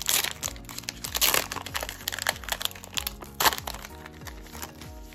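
Foil Pokémon booster-pack wrapper crinkling and crackling in the hands as it is torn open and the cards are pulled out, in sharp irregular bursts, the loudest about 3.5 seconds in. Background music plays underneath.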